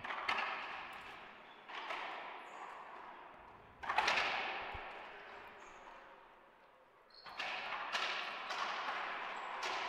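Racquetball serve and rally: sharp smacks of racquets striking the ball and the ball hitting the court walls, each ringing out and fading in the enclosed court's echo. The loudest smack comes about four seconds in, and a quick run of hits follows from about seven seconds.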